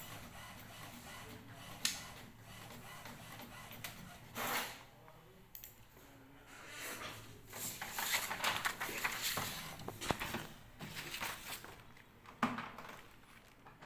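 Office printer at work and paper being handled: a few sharp clicks, then several seconds of uneven mechanical clatter and rustling.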